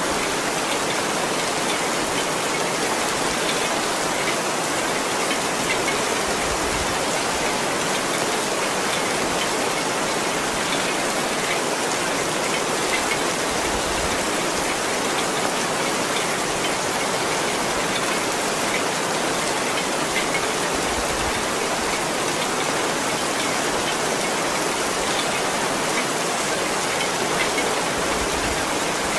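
Heavy rain falling steadily, a dense even hiss with individual drops standing out here and there.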